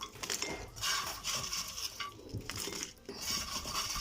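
A plate of dry microwave potato chips being handled: the plate and utensils clink and the chips rustle in irregular bursts with short pauses between.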